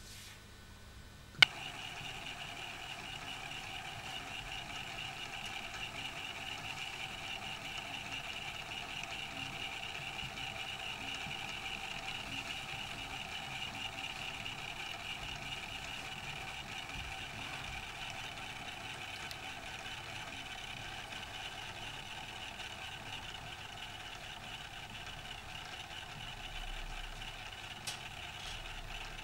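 Edison phonograph's drive mechanism running with a steady whir as its governor and pulleys spin. A single sharp click about a second and a half in sets it going.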